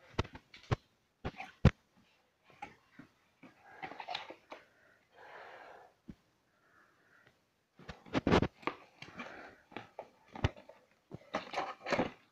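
Hands rummaging in a cardboard box and handling its contents (a tape roll, wick and clear plastic candle moulds): sharp taps and knocks with bouts of rustling and scraping. The loudest cluster comes about eight seconds in, and another near the end.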